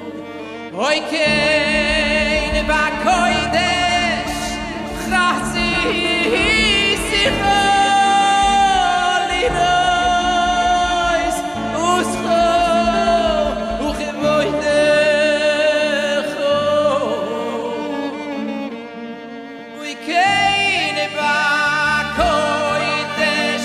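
Male vocalist singing a Hasidic song into a handheld microphone, holding long wavering notes, over band accompaniment with a steady bass line. The music softens briefly about three-quarters of the way through, then comes back in full.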